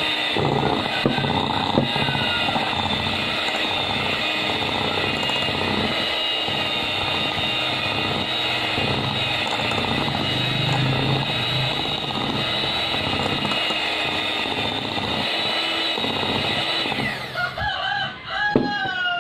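Handheld electric mixer running steadily, its beaters churning a creamed butter-and-sugar cookie dough in a glass bowl, with a steady motor whine. The motor winds down about two seconds before the end.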